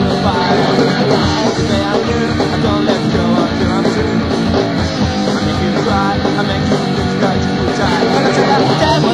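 Punk rock band playing full out: electric guitar, bass and drums, with a steady driving drum beat.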